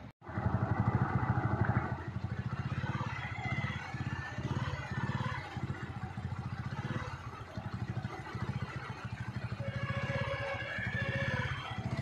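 An engine running steadily, with a rapid, even low pulse throughout. The sound starts abruptly after a brief dropout at the very beginning.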